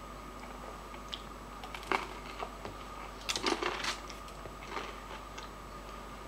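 Eating sounds: a few light clicks and scrapes, such as utensil on plate or chewing, with a busier cluster about three and a half seconds in. A steady faint hum lies underneath.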